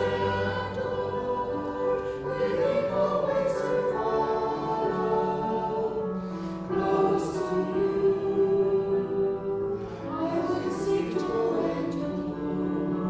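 A group of voices singing a hymn in slow, held notes.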